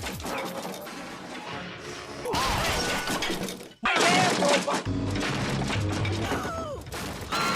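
Hollywood Edge 'Wood Crash Large' stock sound effect: a large crash of splintering, breaking wood, heard several times in quick succession over cartoon music and voices, loudest about four seconds in.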